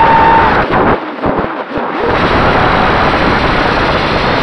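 FPV quadcopter's motors and propellers, heard through its onboard camera as a loud rushing of prop wash and wind with a steady motor whine. The whine stops and the sound falls away for about a second, the throttle briefly cut during a manoeuvre, then the full rushing sound returns.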